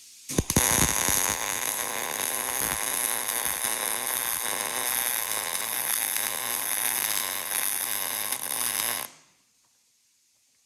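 Millermatic 200 MIG welder arc welding a hinge onto a steel tractor cab door. A few sharp pops at the strike, then a steady crackling buzz for about nine seconds that stops abruptly when the trigger is released.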